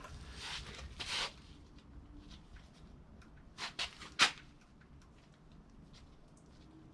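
Hand-handling of parts and tools on the open engine: two brief rustling scrapes, then three sharp clicks a moment apart, the last the loudest, and a few faint ticks.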